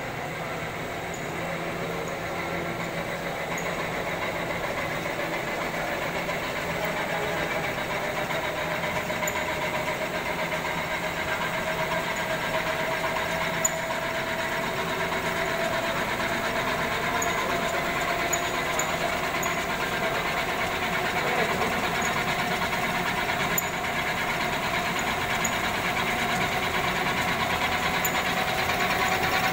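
Cantilever slitting rewinder running: a steady mechanical hum with a whine that grows a little louder early on and rises slightly in pitch midway, with a few brief clicks.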